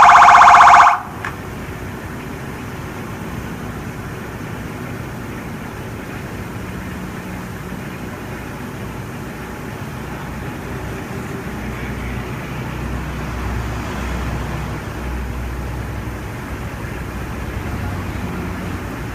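Electronic emergency-vehicle siren sounding loudly, cut off suddenly about a second in. After that, a steady low rumble of vehicle and traffic noise.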